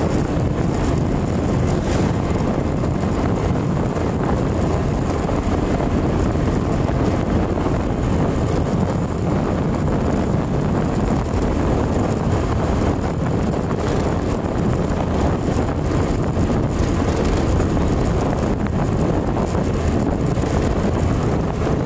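Motorcycle cruising steadily on the open road: wind rushing over the microphone over the engine's steady running.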